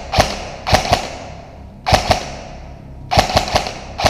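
Airsoft rifle firing quick pairs and short strings of shots, about five groups of two to four sharp cracks.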